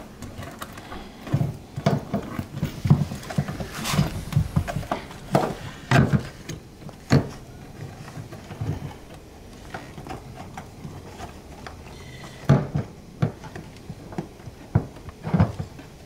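Irregular knocks, clicks and rustling from a fuel pump module and its plastic wiring connectors being handled and set into the fuel tank opening, with a few louder knocks about 3, 6 and 12 seconds in and a quieter stretch in between.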